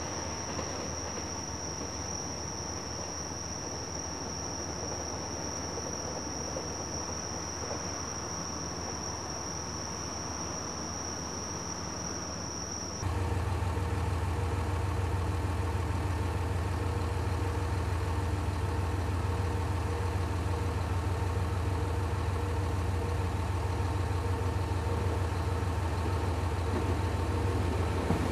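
Crickets trilling steadily on one high note. About halfway through the sound changes abruptly to the steady, low hum of an idling diesel railcar, a KiHa 187 series standing at the platform.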